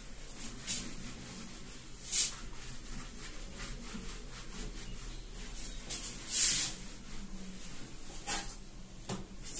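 A hand wiping marker writing off a whiteboard: several brief rubbing swishes, the loudest about six and a half seconds in.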